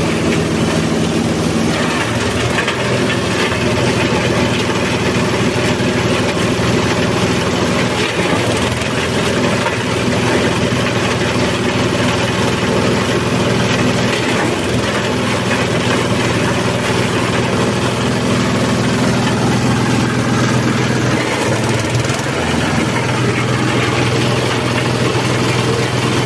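Engine of a multifunction grass chopper and grinding machine running steadily, with a brief dip in pitch about three quarters of the way through.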